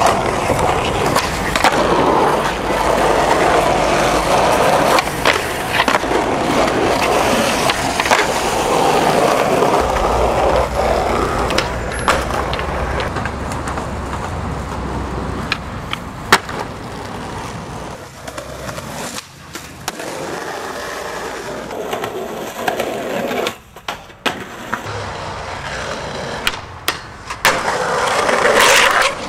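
Skateboard wheels rolling on concrete and asphalt, with sharp clacks from tail pops, landings and board impacts, over several short clips with abrupt cuts between them.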